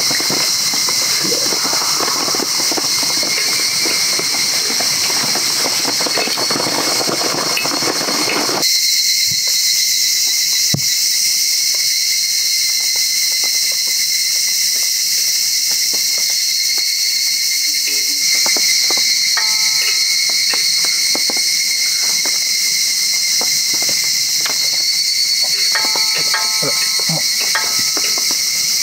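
Garlic slices sizzling and crackling in sesame oil in a griddle pan for the first eight or so seconds, then stopping abruptly. A steady, shrill insect chorus runs underneath and continues alone afterwards, with a few faint clicks.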